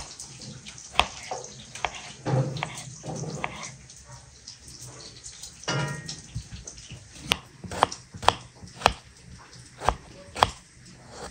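Kitchen knife cutting through tomatoes onto a wooden cutting board: irregular sharp taps of the blade hitting the board, coming closer together in the second half.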